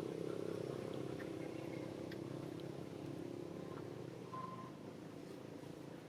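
A motor vehicle engine running steadily as a low hum, easing off after about four and a half seconds, with a few faint high chirps over it.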